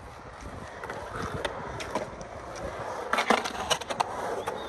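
Skateboard wheels rolling across a concrete bowl, with a cluster of sharp clacks and scraping about three seconds in as the board's trucks hit and grind along the bowl's coping.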